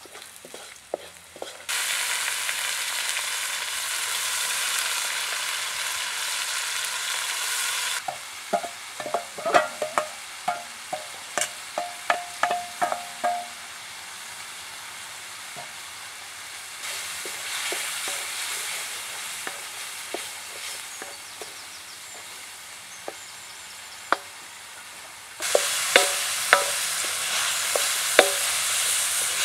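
Ginger, chili and tomato sizzling in hot oil in a metal wok over a wood fire, with a wooden spatula scraping and knocking against the wok. The sizzle comes in sharply a couple of seconds in and again near the end, and there is a run of spatula knocks in the middle.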